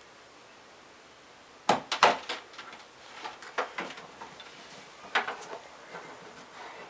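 Knocks and clatter of things being handled at a wooden TV stand while cables are worked behind the television: two sharp knocks about two seconds in, then scattered lighter clicks and taps.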